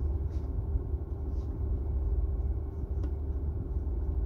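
A steady low rumble with a faint hum, and a faint click about three seconds in.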